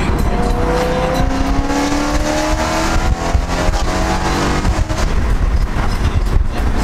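Straight-piped BMW E92 M3 V8 accelerating, heard from inside the cabin: the exhaust note climbs steadily in pitch for about three seconds as the revs rise, then eases off.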